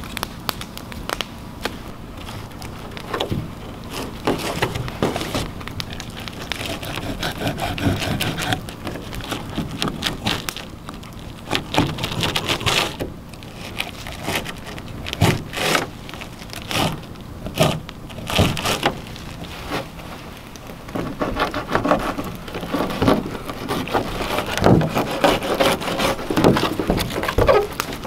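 A knife filleting smallmouth bass on an overturned canoe hull: irregular slicing and scraping strokes against the hull, some in quick runs, with a campfire crackling.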